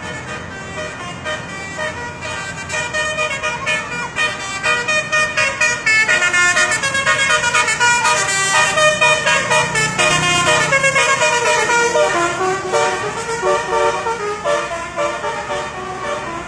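Telolet horn, a multi-tone musical vehicle horn, playing a rapid tune of stepping notes over traffic noise. It grows louder about six seconds in.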